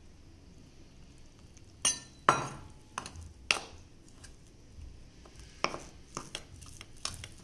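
Metal spoon stirring a fuller's earth and water paste in a stainless-steel bowl: soft scraping with a string of sharp clinks against the bowl's side, some ringing briefly.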